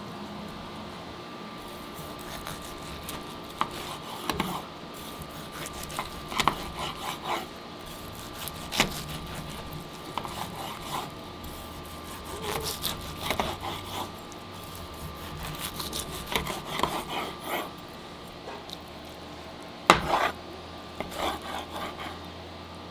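A knife sawing through smoked picanha: groups of short rasping strokes every couple of seconds, with a sharp knock about twenty seconds in.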